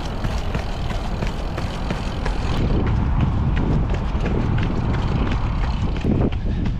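Running footsteps: shoes striking wet paving in a steady quick rhythm, about three footfalls a second, under a constant low rumble of wind on the microphone.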